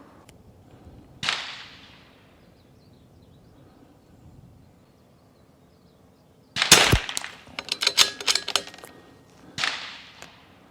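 .22 LR bolt-action rifle firing twice, about eight seconds apart: each a single sharp crack with a short fading tail. Between the shots comes a quick run of sharp clicks and knocks lasting about two seconds, the loudest sound here.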